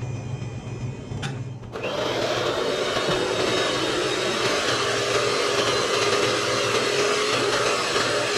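Electric hand mixer switched on about two seconds in, then running steadily as its beaters whisk a runny cake batter in a stainless steel bowl.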